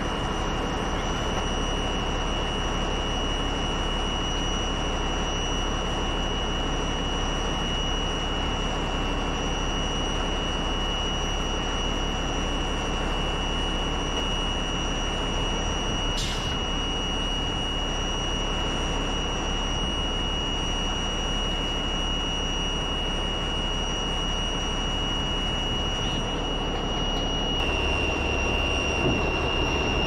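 Heavy diesel equipment running steadily: a constant engine noise with a steady high-pitched whine over it.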